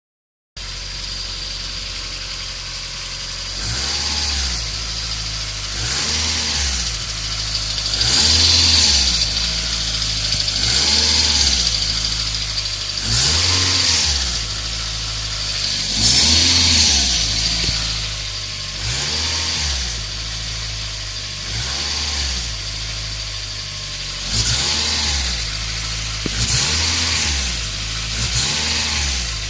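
Toyota Altezza RS200's four-cylinder engine with a Fujitsubo Super EX exhaust manifold, idling and blipped about ten times, each rev rising and dropping back to idle. A raspy 'jah' comes as the revs climb and again as they settle, which the owner asks about as a possible abnormal noise from the manifold.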